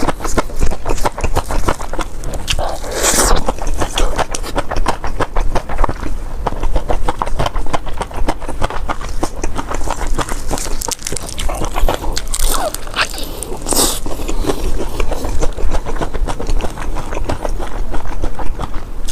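Close-miked chewing of spicy turkey noodles wrapped in liangpi cold-skin noodles: a dense run of wet, sticky mouth clicks and smacks, with louder, longer sounds about three seconds in and again around thirteen seconds.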